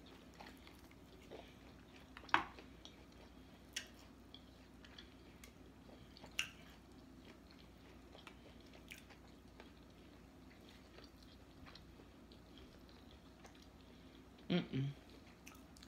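Quiet eating of fried chicken: soft chewing and mouth sounds with a few scattered sharp clicks, and a short hum of a voice near the end.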